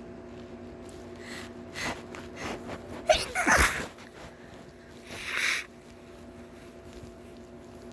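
A single loud sneeze about three seconds in, led up to by a few sharp catching breaths and followed about two seconds later by a shorter breathy exhale or sniff. A steady faint hum runs underneath.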